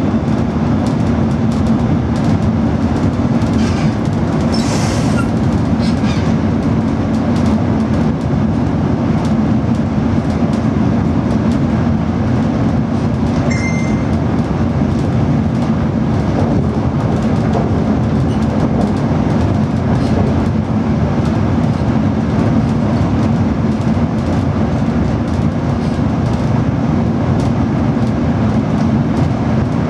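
DB Class 425 electric multiple unit running along the line, heard from the driver's cab: a steady low rumble of wheels on rail and running gear. A brief hiss comes about five seconds in, and a short high beep sounds near the middle.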